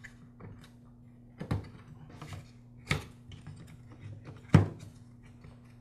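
Clicks and knocks of a string trimmer's motor and spindle shaft assembly being handled and seated into its plastic housing half: three sharper knocks about a second and a half apart, the last the loudest, with lighter taps between.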